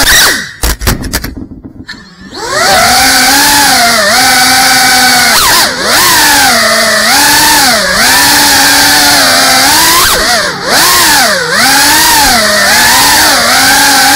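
Whine of an FPV quadcopter's brushless motors and propellers, picked up by the on-board camera. The pitch keeps rising and falling with the throttle. Near the start the motors briefly drop away with a few clicks, then spool back up about two seconds in.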